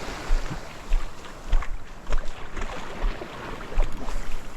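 Wind gusting on the microphone over surf washing up the beach, with a few faint clicks in between.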